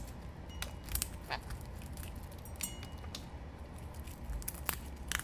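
Sun conure biting and crunching a peanut in the shell with its beak, close-miked: sharp, irregular cracks and crunches of the shell.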